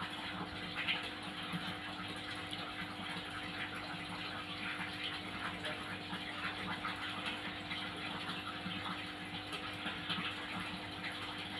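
Steady background hum with a constant hiss and faint rapid crackles, unchanging throughout.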